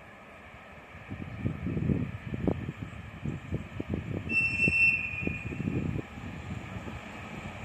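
A train passing, its wheels clacking in quick groups over the rail joints under a steady rumble. A brief high squeal comes about four seconds in.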